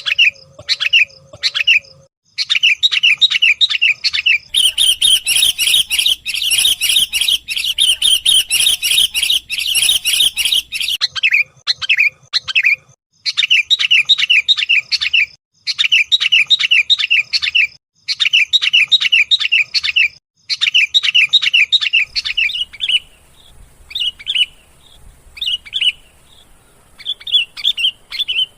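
Sooty-headed bulbul (kutilang) calls: runs of quick, sharp chirps, several a second, in bursts broken by short pauses. The runs are densest and loudest in the first third and become sparser near the end.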